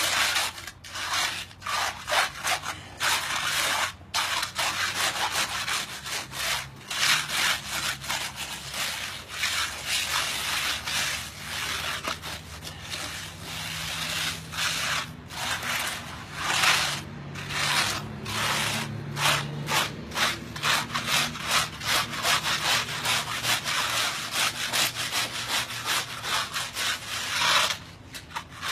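12-inch diamond concrete hand float rubbed hard back and forth over a concrete slab: stroke after stroke of irregular scraping, grinding down a rough patch of the surface.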